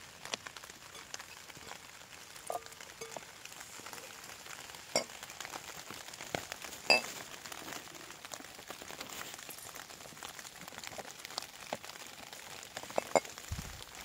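Shrimp being tipped from a glass bowl into a ceramic bowl of oil marinade: soft handling noises and a couple of sharp clinks with a brief ring, about five and seven seconds in, over a faint steady crackle.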